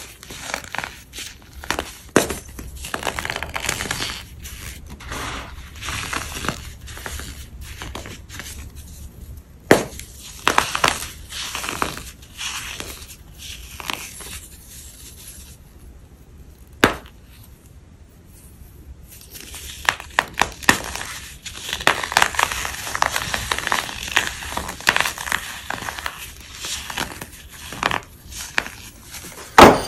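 Chalky blocks being crushed and crumbled, a run of dry crunches, crackles and sharp snaps. About halfway through there is a short lull broken by a single loud snap, then dense crunching resumes.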